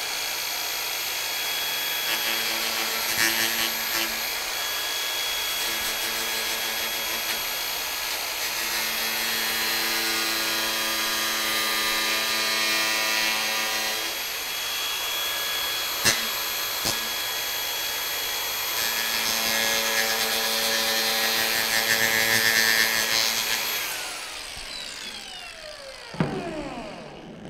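Makita cordless 4.5-inch angle grinder fitted with 24-grit sanding discs, running steadily as it grinds away the end of a piece of painted molding to rough out a coped joint. It is switched off about 24 seconds in and winds down with a falling whine.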